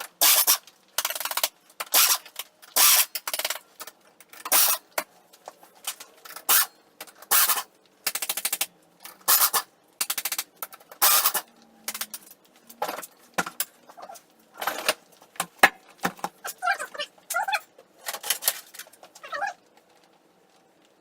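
Packaging being ripped and pulled off new ATV tires: a quick series of short tearing, rustling noises, with a few squeaky stretching sounds near the end.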